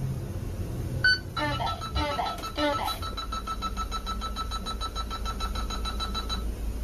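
Sudden-hazard alarm of a driving-test scoring system in a bus cab. A short beep about a second in is followed by a brief recorded announcement and a rapidly pulsing alarm tone that stops after about five seconds. It is the signal for an emergency stop and hazard lights.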